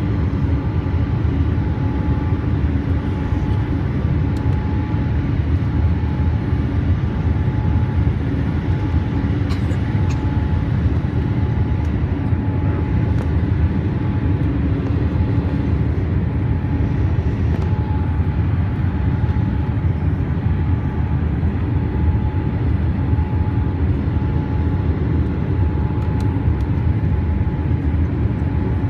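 Boeing 787 cabin noise from a window seat over the wing: the GEnx turbofans and rushing airflow make a loud, steady low rumble with a faint steady whine above it, at low altitude on the approach.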